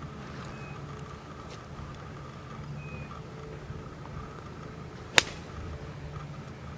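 A golf club striking a ball off the grass: one sharp, loud crack a little over five seconds in, over a steady low hum.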